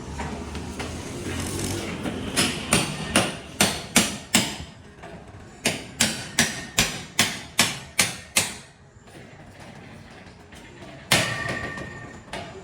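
Hammer blows at a steady pace of about two to three a second: a run of six, a short pause, then a run of eight. After a gap, one louder blow rings briefly near the end.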